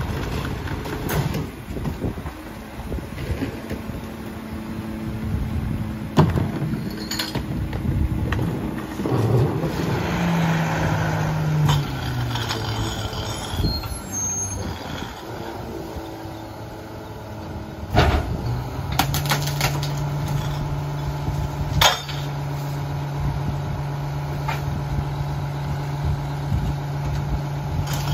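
Rear-loader garbage truck working a stop, its diesel engine running, with several sharp bangs as carts and bags hit the hopper. Partway through, the engine pitch drops as the truck moves up. From about two-thirds of the way in, the engine holds a steady raised drone, as it does while the packer cycles.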